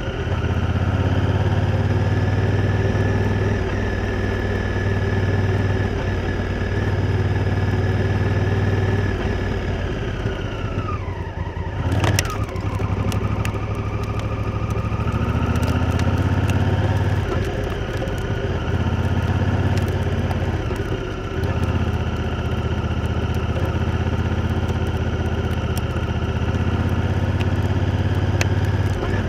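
Honda Africa Twin's parallel-twin engine running under way, its note dropping as the throttle is rolled off about ten seconds in, then rising again as it pulls away. A sharp knock falls near the midpoint, and small ticks and clatters follow.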